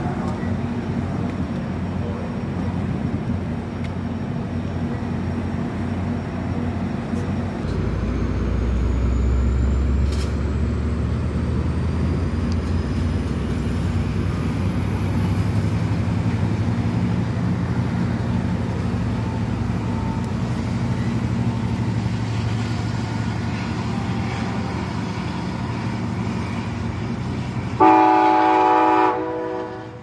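Diesel passenger train locomotive running with a steady low rumble, then its horn sounding one loud chord about two seconds before the end, lasting about a second.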